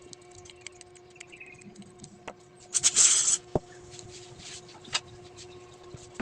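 Small clicks and scratches of hand work on small metal electrical contacts being cleaned, with one loud hissing scrape or burst lasting about half a second about three seconds in, over a steady low hum.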